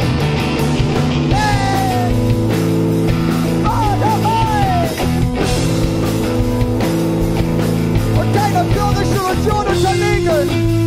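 Post-hardcore rock band playing live and loud: distorted electric guitars hold chords over drums and cymbals, with a melody line sliding up and down in pitch above them.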